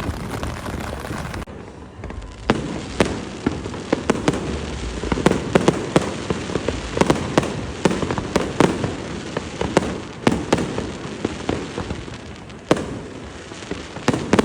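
Fireworks display going off: an irregular string of sharp bangs and crackles, several a second, over a steady noisy background.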